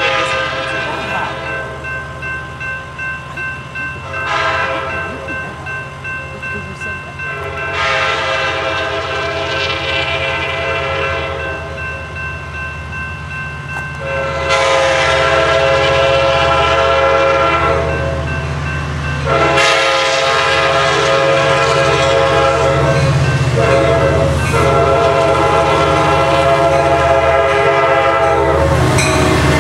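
Sounder commuter train's diesel locomotive approaching and sounding its horn in a series of blasts, two short ones early and then several long ones from about eight seconds in, over an engine and rail rumble that grows louder as it nears. A grade-crossing bell dings steadily underneath.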